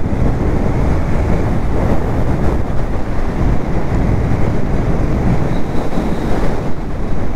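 Wind rushing over the microphone as a Royal Enfield Interceptor 650 motorcycle is ridden, with a steady low rumble of engine and road underneath.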